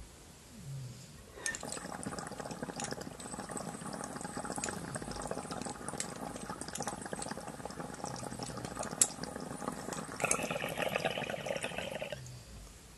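Water bubbling and percolating in a glass dab rig as a dab is pulled through it; the rig is fitted with a core reactor banger, which makes it bubble differently than a thermal banger. The bubbling starts about a second and a half in, grows louder and brighter near the end, and stops about a second before the end.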